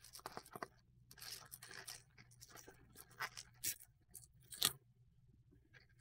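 Plastic bubble mailer being torn open by hand, the plastic crinkling and crackling in irregular bursts, the sharpest crackle about four and a half seconds in.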